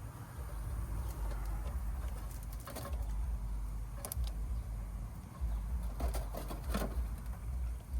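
Steady low rumble with a few short, sharp clicks and rustles about three seconds in, four seconds in, and between six and seven seconds: wire leads being handled and pushed onto the terminals of a new dual run capacitor.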